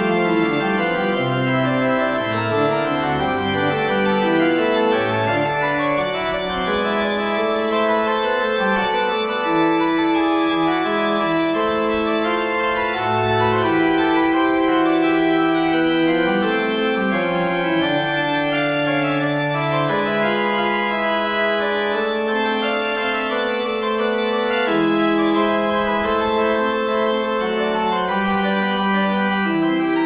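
Slow relaxing music of long held chords, the notes changing every second or two.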